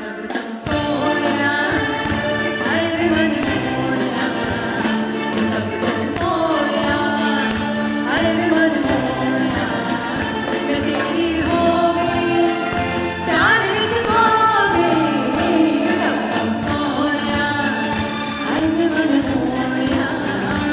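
A woman sings a melody live with a band behind her, drum kit keeping the beat; the full band comes in, louder, about half a second in.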